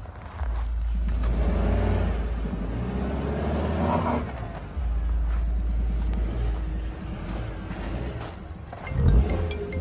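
Maruti Suzuki Brezza's 1.5-litre petrol engine pulling and revving as the car drives slowly over rough, uneven ground close by. It surges loudest near the end.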